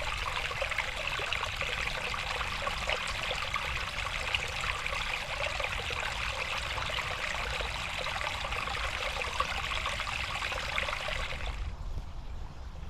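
A small stream of clear water trickling and splashing steadily over stones. It cuts off suddenly about a second before the end.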